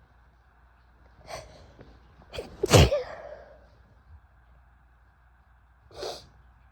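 A woman sneezing: a couple of short catching breaths, then a loud sneeze just under three seconds in. A shorter, quieter burst comes near the end.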